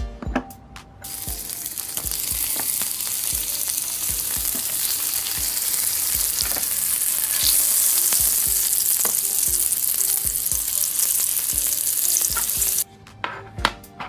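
Dubbed-in sizzling sound effect of meat frying on a hot grill: a loud, even hiss that fades in about a second in and cuts off abruptly near the end.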